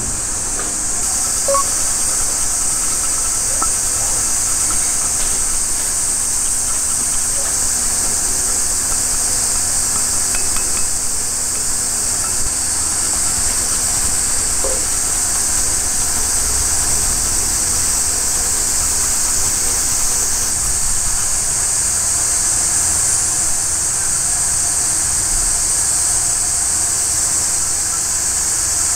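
Loud, steady high-pitched hiss with no rhythm, and a faint low hum underneath that stops about twenty seconds in.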